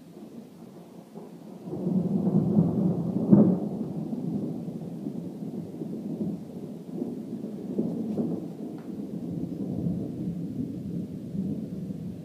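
Thunder: a low rumble breaks in suddenly about two seconds in, with a loud crack a moment later, then rolls on unevenly and slowly fades.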